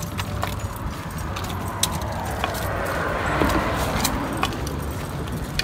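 Road traffic on a bridge: a vehicle passes, swelling and fading in the middle over a steady low rumble, with light metallic jingling and clicks from a walking dog's collar and pack.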